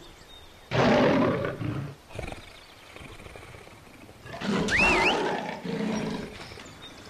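Monster roar sound effect for a dinosaur, heard twice, each lasting a second or two.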